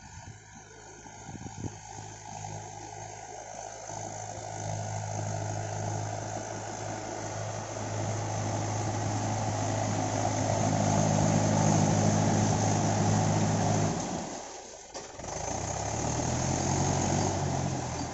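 Mahindra tractor's diesel engine running steadily while ploughing, growing louder for most of the stretch. Near the end the sound drops away briefly and comes back at a different pitch.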